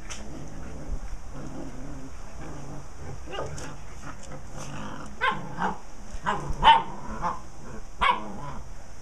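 A mother dog and her puppies play-wrestling, with a string of short barks and yips starting about three seconds in, bunched between five and seven seconds and loudest just before seven seconds.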